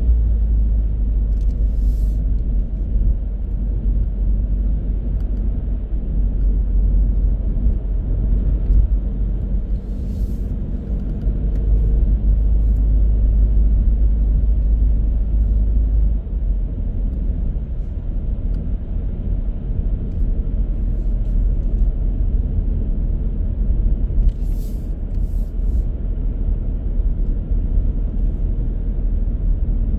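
A car driving: steady low rumble of engine and tyre road noise, the deep tone shifting slightly about halfway through, with a few brief faint ticks.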